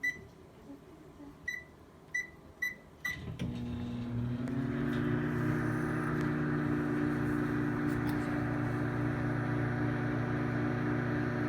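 Microwave oven keypad beeping five times as the cook time is entered, then the oven starting up and running with a steady hum.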